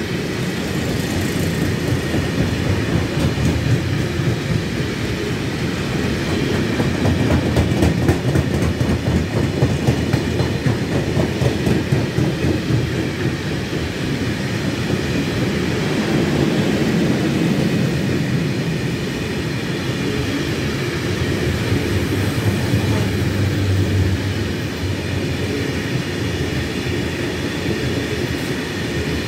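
Freight train of open coal wagons rolling past at steady speed, steel wheels clattering over the rails with a continuous loud running noise.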